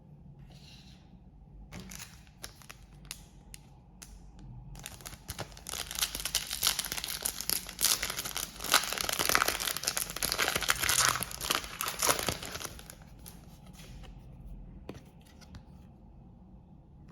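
Wrapper of a collectible card pack being torn and crinkled open: a few separate sharp rips and clicks, then several seconds of dense crinkling that is loudest about halfway through and dies away after about thirteen seconds.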